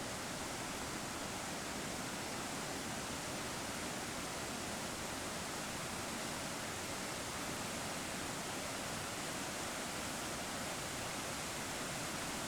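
Steady rushing of a swollen, flooded river in spate.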